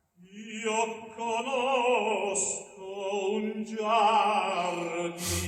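Operatic singing with a wide vibrato over orchestral accompaniment, begins a moment in, played back through a Harbeth P3ESR monitor speaker in a sound check. A couple of brief cymbal-like crashes are heard.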